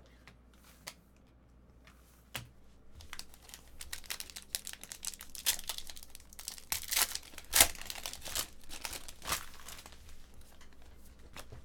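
Foil wrapper of a pack of football trading cards being torn open and crinkled by hand: a run of crackling and tearing that starts about three seconds in and is loudest around seven to eight seconds in.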